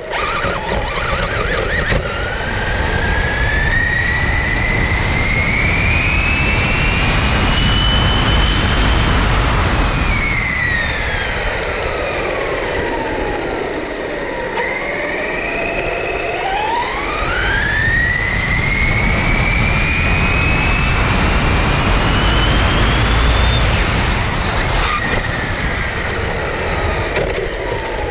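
Traxxas Rustler brushless RC car's electric motor whining as the car speeds up, the whine rising in pitch, falling back around the middle, then rising again, over a steady rush of wind and tyre noise.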